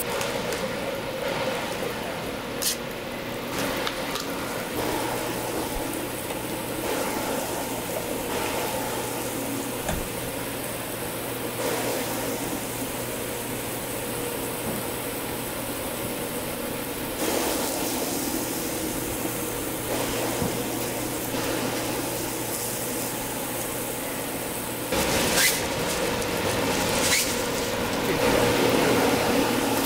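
Egg-and-cabbage batter and bread cooking on a hot oiled flat-top griddle: a steady sizzle with a low hum under it, broken by a few sharp clicks. It gets louder near the end with the rustle of aluminium foil being handled.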